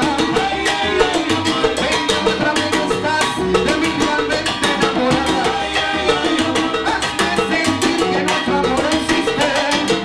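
A salsa band playing live, with a lead singer over timbales and hand-drum percussion and a bass line. The percussion keeps a dense, steady beat throughout.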